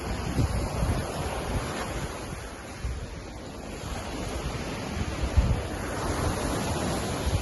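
Lake Ontario waves: a steady wash of water, with wind buffeting the microphone in irregular low rumbles.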